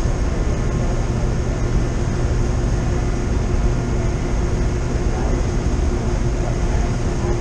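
Steady drone of a large motor car ferry's engines and machinery, heard on deck: a constant low hum with a fainter higher tone over a rumbling hiss.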